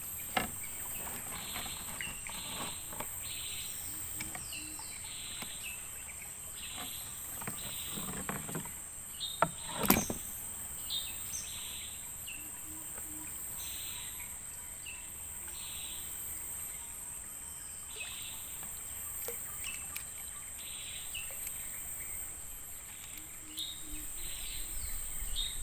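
Jungle riverbank ambience: a steady high-pitched insect drone with short chirps repeating about once a second, and a single knock about ten seconds in.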